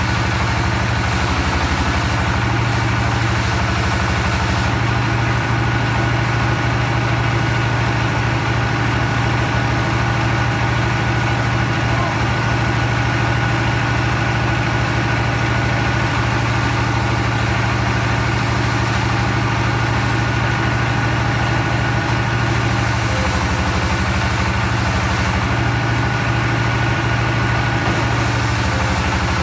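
Engine of a log-sawing machine running steadily without a break, with a high hissing that drops away and comes back several times.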